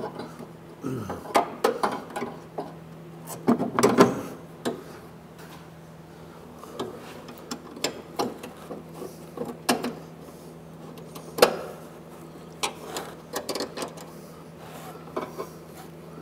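Irregular clicks, knocks and rattles of a metal electric headlight actuator and its mounting bracket being worked into place against the car's support brackets and bolts, with a faint steady hum underneath.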